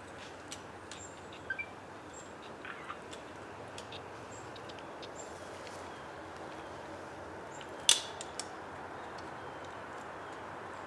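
Steady background hiss with scattered small clicks and a few brief chirps, and one sharp knock near eight seconds in.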